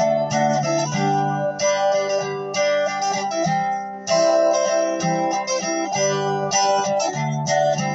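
Acoustic guitar strummed in repeated chords, an early-stage song being played through.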